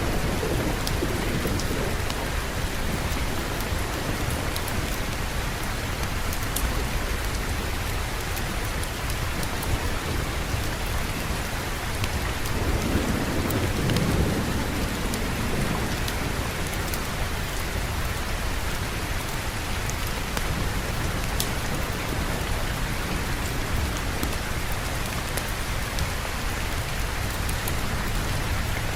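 Steady heavy rain with a low rumble of thunder near the start and a longer one about halfway through, and scattered sharp drip ticks.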